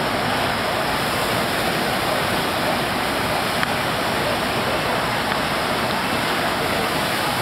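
Steady rushing of a FlowRider sheet-wave machine: a thin, fast sheet of pumped water pouring up and over the wave surface in a constant roar of spray.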